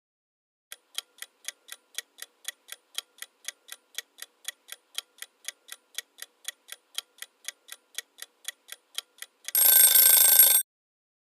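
Countdown clock-ticking sound effect, about four ticks a second, ending in a loud alarm ring of about a second that cuts off suddenly: the quiz timer running out.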